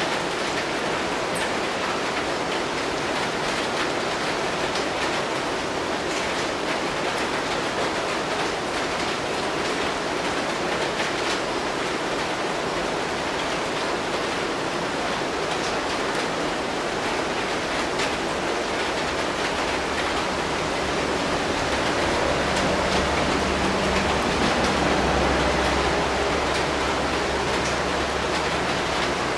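Steady rain falling. A low rumble swells for a few seconds about three-quarters of the way through.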